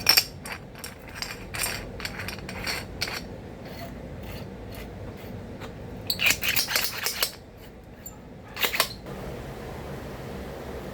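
Small sharp clicks and rattles of metal parts and a screwdriver being handled while screws are taken out of a nail gun to lower its driving force. A quick run of clicks comes at the start, a denser cluster about six seconds in, and a couple more near nine seconds.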